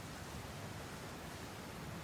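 A steady low rumble under an even hiss, with no distinct events.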